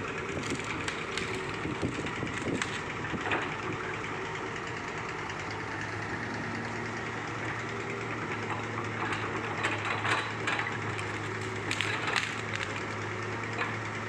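Hydraulic excavator engine running steadily while its bucket rakes and scoops tree branches and debris, with crackling and snapping of wood that comes thicker in the second half.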